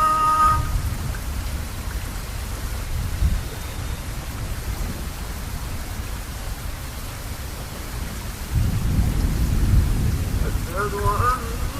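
Steady rain hissing, with low rumbles of thunder that swell loudest about nine to ten seconds in.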